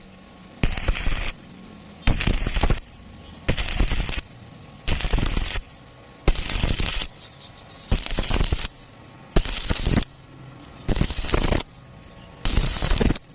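Electric arc welding in short runs: nine brief bursts of arc crackle, each under a second, striking and stopping about every second and a half, as in a row of tack welds.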